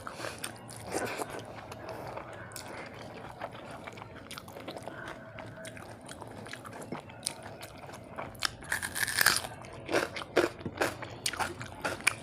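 Close-up eating sounds: a person chewing, with sharp crunches of crisp food, sparse at first and coming thicker and louder in the second half.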